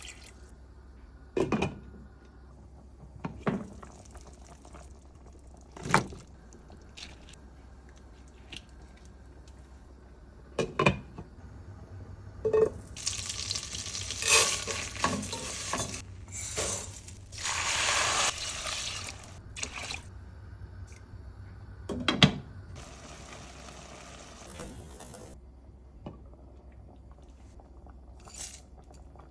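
Kitchen work sounds: several sharp knocks of utensils or cookware against pots, and a stretch of several seconds in the middle of rushing, water-like noise, as from running or pouring water.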